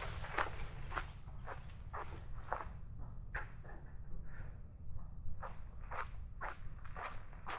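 Footsteps of a person walking, about two steps a second with a sparser stretch in the middle, over a steady high-pitched drone of insects.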